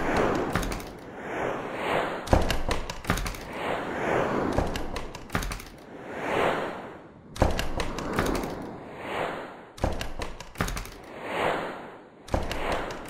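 Whoosh sound effects, each swelling and fading in roughly a second, one after another, with sharp knocks or hits between them.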